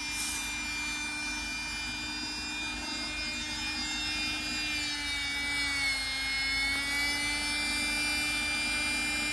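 Corded electric air pump running steadily, inflating an air mattress through its valve: a steady motor whine whose pitch sags a little about five seconds in and then recovers.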